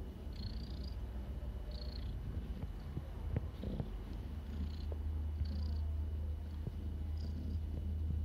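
Domestic cat purring steadily as it is rubbed and petted by hand, the purr growing louder about halfway through, with small scuffs from the handling.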